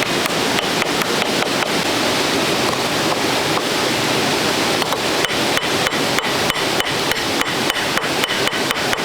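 Rapid, evenly spaced knocks of a tool striking, about four or five a second, in a short run at the start and a longer run from about halfway to the end, over the steady rush of a nearby stream or waterfall.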